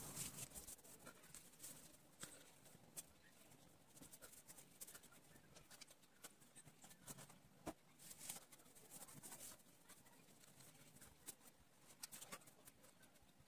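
Faint, irregular scratching and small taps of a fine-tip drawing pen moving across paper as it inks lines.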